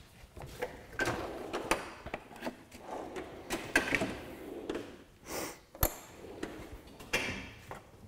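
Metal hand tools being picked up and handled: a run of clicks, light clanks and short scrapes, with one sharp click near six seconds in.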